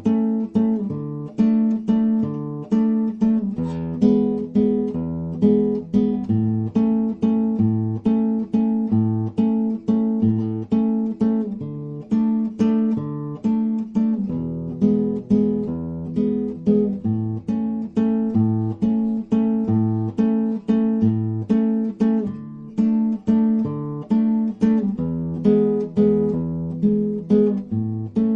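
Acoustic guitar music: evenly picked notes over a repeating bass note, in a steady rhythm.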